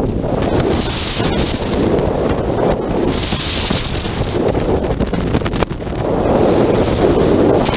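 Wind buffeting the microphone of a camera on a motorcycle cruising at highway speed, with the bike's engine and road noise underneath; the wind swells into louder gusts about a second in, again around three and a half seconds, and near the end.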